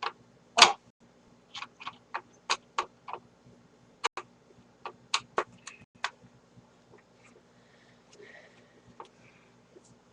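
Irregular clicks and taps of a screwdriver and screws against a plastic vacuum cleaner housing as the panel screws are taken out. The clicks come thickest in the first six seconds, the loudest about half a second in, then thin out.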